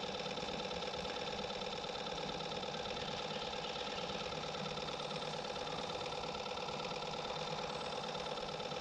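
A small motor humming steadily at an even pitch, with no change in speed.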